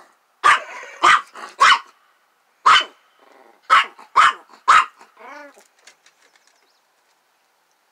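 Small dog barking: seven sharp barks over about five seconds, then a short wavering cry.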